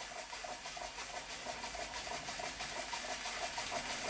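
Weeden No. 38 toy steam engine running under steam: an even, quick rhythm of steam beats from its single working cylinder, with a hiss.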